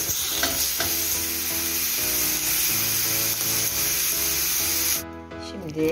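Turkey pieces sizzling as they sear in a hot stainless steel grill pan; the sizzle cuts off abruptly about five seconds in.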